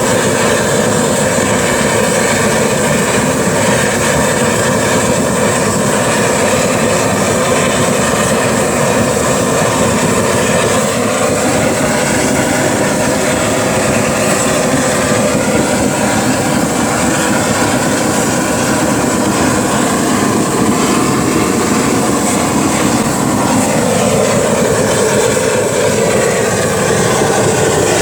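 Waste-oil burner firing into a foundry furnace: a loud, steady roar that sounds like a jet engine, with a faint pitched note in it that wavers and shifts in the last third.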